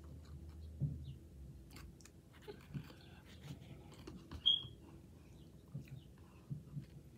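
Person chewing instant noodles, with soft irregular mouth clicks and smacks. One short high-pitched chirp about four and a half seconds in.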